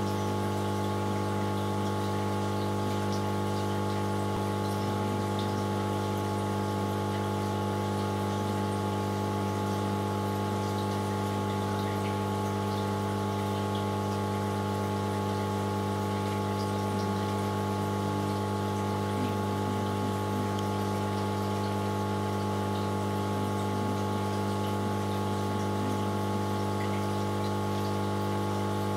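Aquarium pump humming steadily, over a light wash of moving water.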